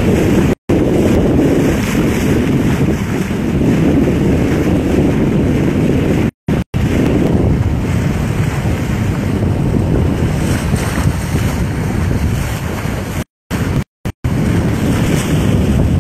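Heavy wind buffeting the microphone at the bow of a sailboat under way, with water rushing past the hull. The sound cuts out completely for split seconds several times.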